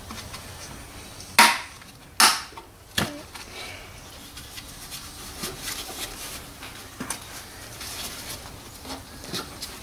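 Hard plastic snapping as the bulb holder is worked free of a rear light cluster: three sharp cracks in the first three seconds, the first two loudest, then light plastic clicks and handling rustles.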